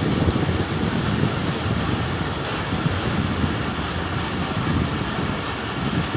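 Steady rumble and rush of the 45Up Pakistan Express passenger train running along the track, heard from on board.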